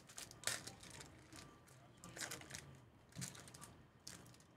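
Foil wrapper of a Panini Prizm basketball card pack crinkling as it is torn open and the cards are slid out. It comes as a few short, sharp rustles, the clearest about half a second, two seconds and three seconds in.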